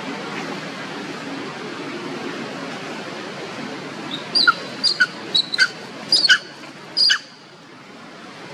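Baby long-tailed macaque crying in a quick run of short, sharp squeals, about six in three seconds starting around four seconds in, the last one longer.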